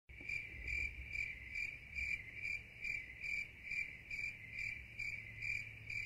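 Insects chirping in a steady, even rhythm, about two high-pitched pulses a second, with a faint low hum beneath.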